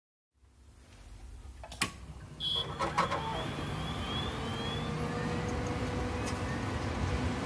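A low rumbling noise fades in and grows steadily louder, broken by two sharp clicks about a second apart and a short high beep with faint chirps.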